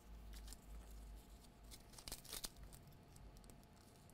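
Near silence: faint clicks and rustles of multimeter probes and charger cable being handled against a laptop charger's plug, most of them about two seconds in, over a faint low hum.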